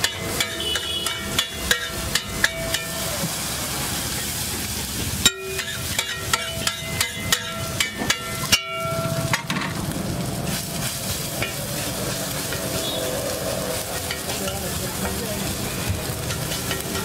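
Metal spatulas tapping and scraping rapidly on a flat iron griddle (tawa) as egg mixture is chopped and stirred, over sizzling frying. The tapping is dense for the first several seconds, then thins out, leaving mostly steady sizzling.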